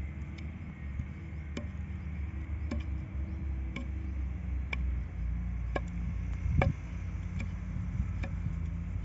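Water buffalo grazing close by, tearing off dry grass in sharp snaps about once a second, the strongest about two-thirds of the way through. A steady low drone of distant truck engines runs underneath.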